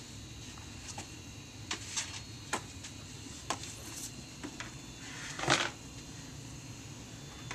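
Pool balls and cue clicking and knocking: a handful of scattered sharp clicks, then a longer, louder knock about five and a half seconds in.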